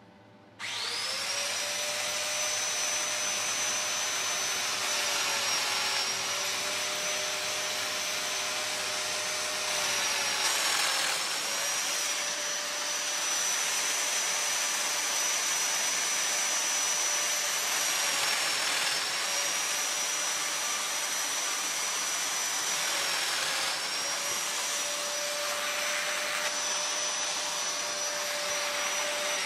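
Festool Domino joiner running with its dust extractor, a steady high whine that starts about half a second in. The pitch sags briefly about five times as the cutter is plunged into the wood to cut mortises.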